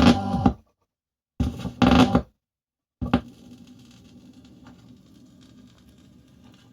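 Vinyl record on a turntable: two short loud bursts of the record's sound about two seconds apart, then a click as the needle drops, followed by faint surface hiss and crackle before the track begins.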